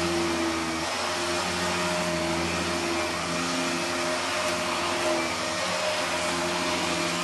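Vacuum cleaner (hoover) running steadily: an even hiss with a low hum whose pitch shifts slightly a few times.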